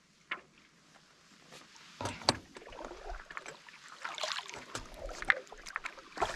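Kayak paddle strokes from a paddle board: the blades dip and pull through calm lake water with splashes and drips. The paddling starts about two seconds in, after a quiet moment.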